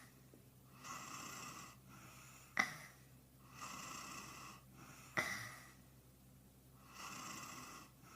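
A man snoring, sped up and pitched up: each slow hissing breath is followed by a sharp snort, about every two and a half seconds, twice.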